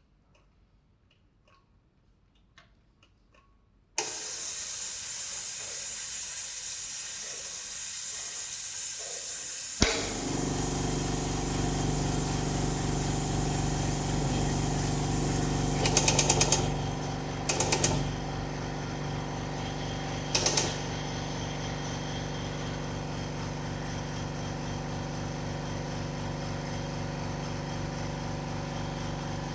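Vacuum leak tester for sachets in operation. After a few faint clicks, a loud steady hiss of air starts suddenly about four seconds in, and around ten seconds a motor starts and runs with a steady hum. Several short, louder hisses come a little past the middle.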